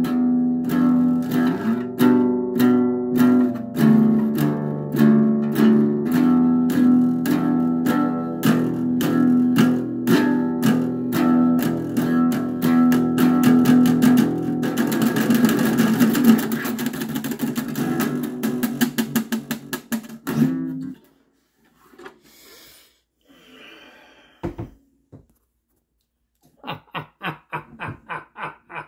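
Acoustic bass guitar strummed in a steady rhythm, the strokes growing quicker and denser past the middle, then stopping suddenly about three-quarters of the way in. A single knock and a quick run of light taps follow near the end.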